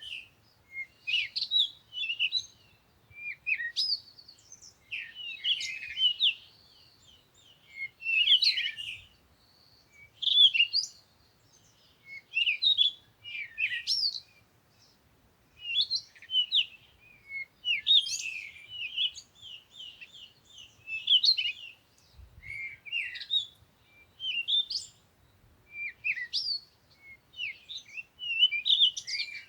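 Birds singing: short, high chirping phrases repeated every second or two, over a faint low rumble.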